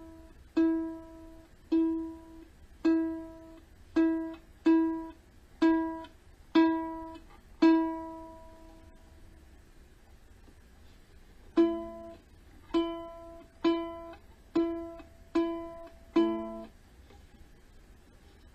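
Kala Ukadelic soprano ukulele's G string plucked one note at a time, about once a second, while it is being tuned. Eight plucks ring and die away, then after a pause of about three seconds come six more.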